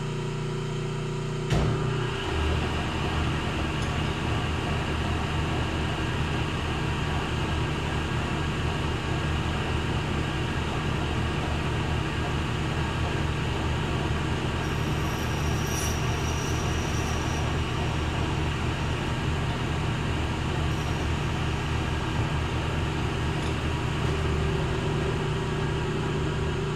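Hardinge HC turret chucker lathe running steadily while a turret tool cuts a solid brass bullet blank. A click about a second and a half in, after which the machine's low hum gets heavier. A brief thin high-pitched whine comes in midway.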